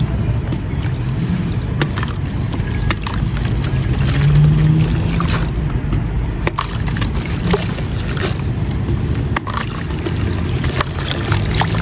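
Mint-green marble powder crumbled by hand in water: scattered gritty crunches and small sharp cracks over a steady low wet sloshing.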